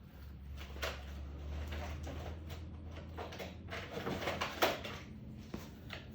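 Objects being handled and set down, a few light knocks and rustles, loudest about four and a half seconds in, over a low steady hum that drops away at about the same point.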